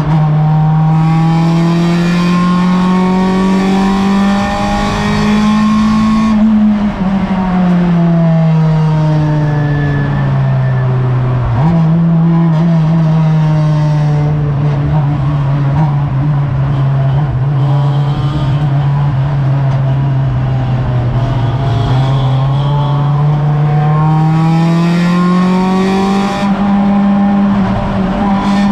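Race car's engine heard from inside the cockpit, under hard throttle. Its pitch drops sharply right at the start (an upshift), climbs for about six seconds, falls away over the next five as the car slows, jumps up about twelve seconds in (a downshift), holds steady, then climbs again over the last few seconds.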